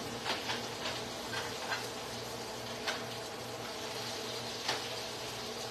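A steady buzzing hum from a kitchen appliance, with a handful of light clicks and taps of a utensil against a pan on the stove, several in the first two seconds and a couple more later.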